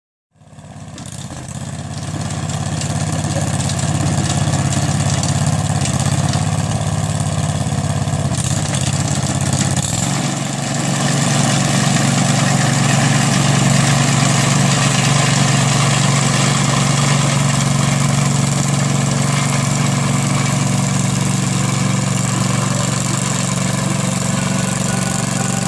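Rapid Spezial single-axle motor mower running steadily under load while mowing grass. It fades in over the first couple of seconds, and its tone shifts about ten seconds in.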